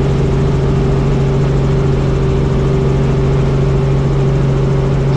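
Tour helicopter's engine and rotor running, a loud steady drone with a fast low flutter beneath it.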